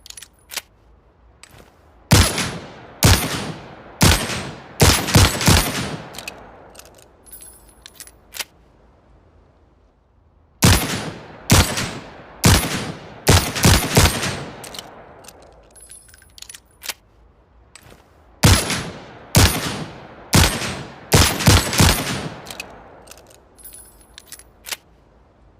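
Manurhin MR-73 .357 Magnum revolver firing three strings of six shots, each string three shots about a second apart and then three in quick succession, every shot followed by a ringing tail. Faint clicks come in the pauses between strings.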